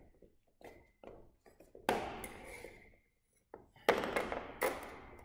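Two fencing weapons being set down on a hard gym floor: one sharp metallic clack about two seconds in and two more close together near four seconds, each with a short ringing tail, among fainter handling taps.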